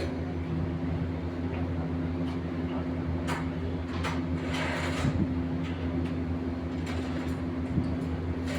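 An engine running steadily with a low, even hum, with scattered short knocks and clicks over it.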